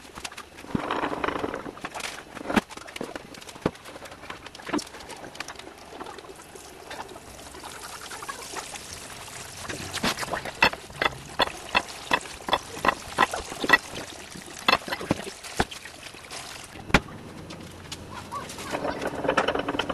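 Sharp clicks, about two a second, from the screw mechanism of a wooden basket cider press as it is worked down onto the pressing blocks, with a few scattered knocks and a brief rushing, pouring noise about a second in and again near the end.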